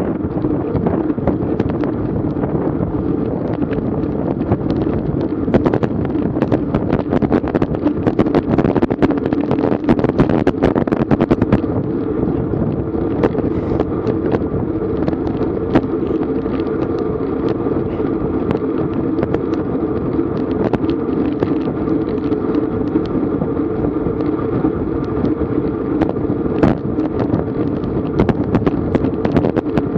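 Wind buffeting the microphone of a GoPro on a racing bicycle at speed, over a steady hum with frequent short clicks and knocks.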